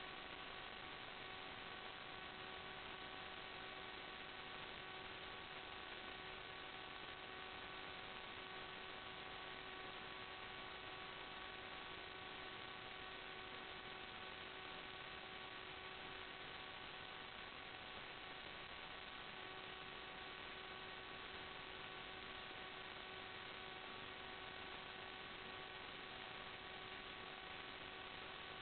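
Faint, steady electrical hiss with a constant hum of several even tones that never change pitch: noise in the recording's audio channel rather than any sound from the drone.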